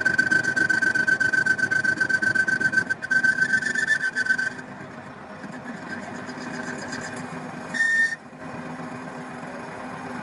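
A power tool or machine runs with a steady high whine and a rapid rattle, then stops about four and a half seconds in. A short, loud high squeal follows near the end.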